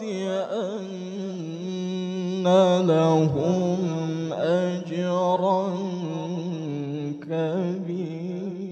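A male qari's solo Quran recitation (tilawah) into a handheld microphone: long held, melismatic phrases with wavering ornaments on each note.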